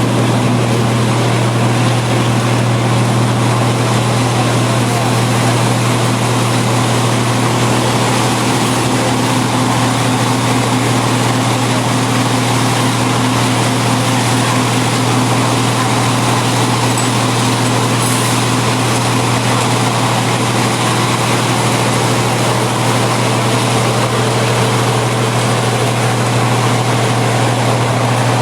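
Road roller's diesel engine running steadily, a loud, even low drone that neither rises nor falls.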